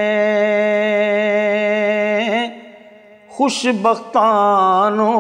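A man's voice singing a Punjabi naat, holding a long steady note. It breaks off about two and a half seconds in for a breath, then comes back with a wavering, ornamented phrase that settles into another held note.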